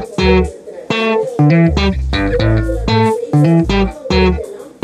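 Background music: a steady run of plucked, guitar-like notes over a deep bass line.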